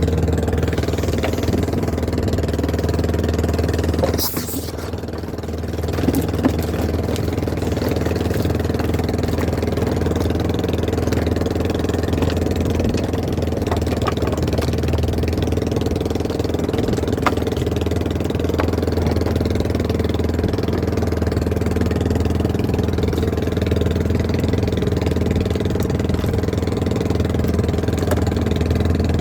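Boat engine running steadily with an even drone. Its level drops briefly about four seconds in, with a click, then returns.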